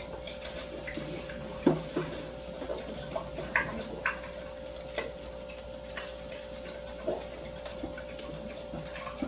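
A spoon clicking and tapping lightly against a small cup, in scattered irregular taps, over a steady faint hum.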